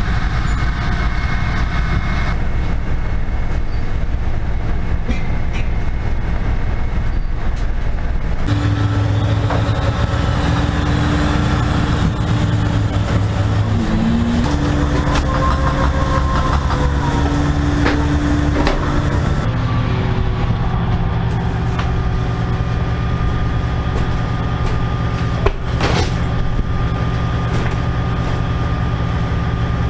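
Steady low drone of a crab fishing boat's machinery, its engine and hydraulic pot-hauling gear running, with the hum changing pitch several times. A single sharp knock comes near the end.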